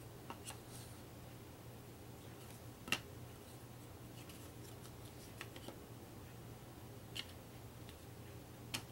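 Thick cardstock game tiles handled on a wooden tabletop: a few light taps and clicks as a tile is picked up and set down, the sharpest about three seconds in.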